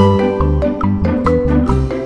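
Background music: quick, bright struck notes over a steady bass beat.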